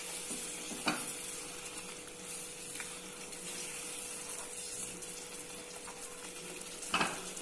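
Mutton masala gravy in a nonstick pan sizzling and bubbling quietly while a silicone spatula stirs it, with two short knocks, about a second in and again near the end.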